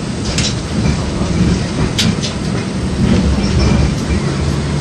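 LVS-86K articulated tram running along the track, heard from inside the car: a steady low rumble of wheels and running gear on the rails, with a few sharp clicks and knocks from the rail joints.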